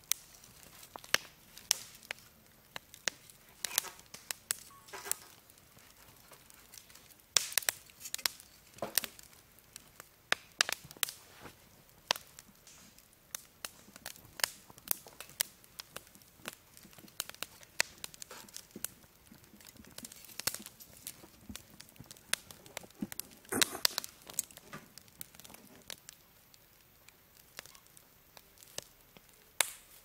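Wood campfire crackling, with irregular sharp pops from the burning logs. The pops come in louder clusters about 8 and 24 seconds in.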